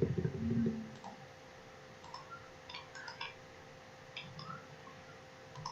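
Faint computer mouse clicks, a few scattered irregularly over several seconds, over a steady low electrical hum. A brief low rumble comes in the first second.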